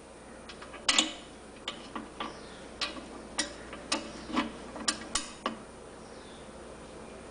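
Sharp clicks from the mechanism of a vintage Enterprise Mfg. Co. hand-cranked coffee grinder, about two a second for four or five seconds, then stopping.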